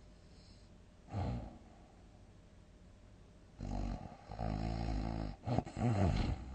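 Heavy snoring during sleep: one short snore about a second in, then a long loud buzzing snore from about halfway, a brief break, and a couple of quick jerky snores near the end.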